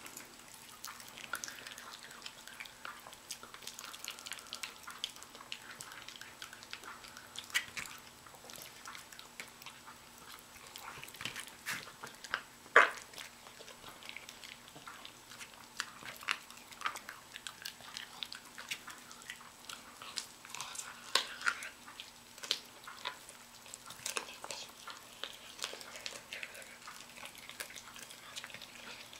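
A Miniature Pinscher chewing and biting raw chicken: irregular wet crunches and clicks of teeth, with one louder click about thirteen seconds in.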